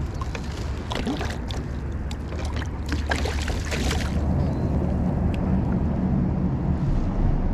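Water splashing and sloshing around a kayak, with scattered sharp splashes about a second in and again around the middle, over a steady low rumble of wind on the microphone.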